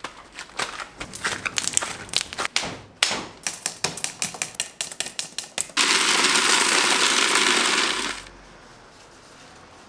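A metal blade chopping a rope of hard candy into pieces on a stone slab: sharp chopping clicks, coming fast and even, about four or five a second, from about three seconds in. Then a loud, steady rushing noise lasting about two seconds cuts in and stops suddenly.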